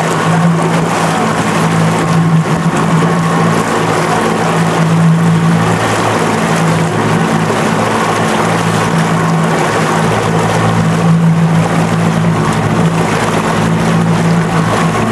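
A boat's outboard motor running steadily at cruising speed, with the rush of the churning wake and wind.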